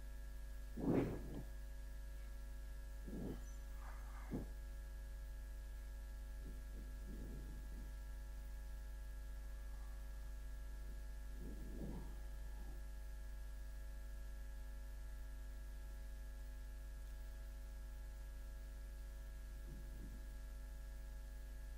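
Steady electrical mains hum, with a few faint brief rubbing sounds as a whiteboard is wiped clean and written on.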